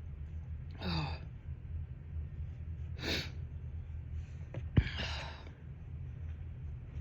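A person's breathy gasps and sniffs between dust-allergy sneezes: three short breathy bursts about two seconds apart, the first about a second in. A sharp knock comes just before the third, over a steady low hum.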